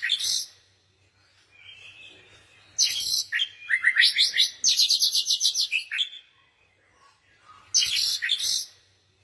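Songbird singing in short bursts of high chirps. The longest phrase, about three seconds in, is a rapid trill of evenly repeated notes lasting about three seconds, and a shorter burst comes near the end.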